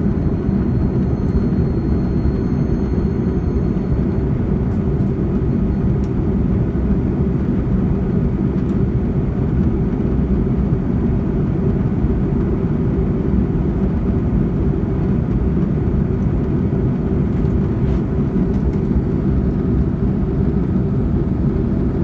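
Jet airliner cabin noise during the climb after takeoff: the engines and rushing air make a steady, deep, unbroken rumble. A faint high whine sits over it for the first few seconds.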